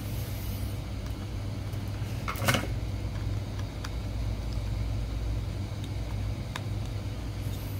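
Steady low room hum, with handling noise from a micro-USB charging cable being fitted to a small plastic action camera: a brief rustle about two and a half seconds in and a few small clicks later.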